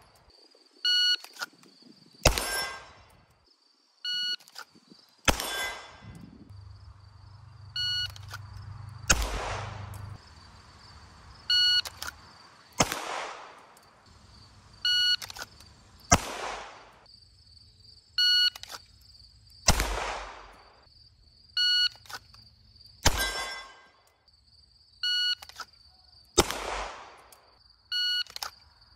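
Shot-timer start beeps, each followed a little over a second later by a single 9 mm pistol shot from a CZ Shadow 2 drawn from the holster. The pattern repeats eight times, a shot every three to four seconds, each with a ringing tail.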